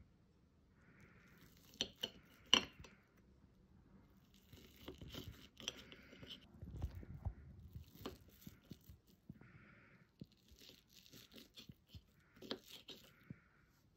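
Faint handling sounds: scattered light clicks, knocks and clinks of small objects, with some rustling or tearing, the louder knocks about two seconds in and again near the end.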